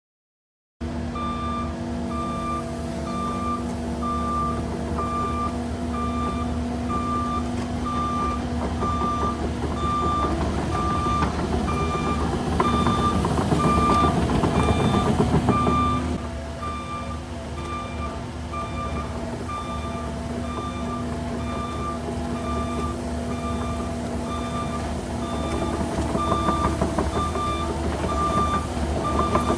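A heavy-equipment backup alarm beeping steadily about once a second over a running diesel engine. The engine works harder for a few seconds about halfway through.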